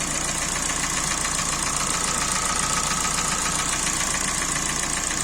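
Kia Sportage III engine running steadily with a fast, even knocking, the knock of a scored (scuffed) cylinder.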